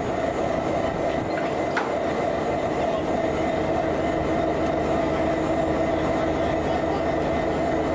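Diesel locomotive idling steadily at close range, an even mechanical drone with a constant hum. A light click sounds about two seconds in.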